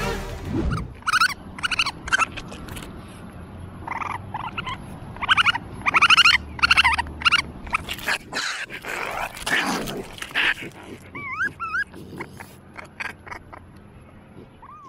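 Raccoon kit crying: a long run of short, high, whining calls, several in quick clusters and the loudest about a third of the way in.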